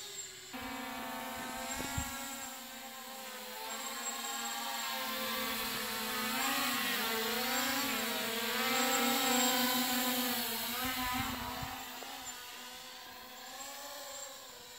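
MJX Bugs 3 quadcopter in flight: the whine of its brushless motors and propellers, rising and falling in pitch as the throttle changes.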